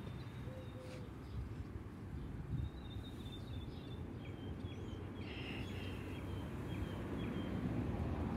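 Small songbird chirping in a quick series of short high notes over a steady low outdoor rumble, which grows louder toward the end.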